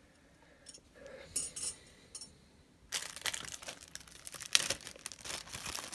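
Metal brass knuckles clinking lightly a few times, then from about three seconds in a plastic zip bag rustling and crinkling with more metal clinks as a bagged pair is handled and taken out.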